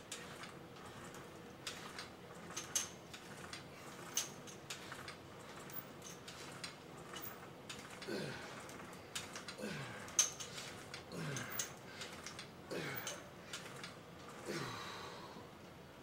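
A weightlifter grunting through a set of shoulder raises, five short falling-pitch grunts about one and a half seconds apart in the second half. Scattered sharp clicks and clinks of gym equipment run throughout.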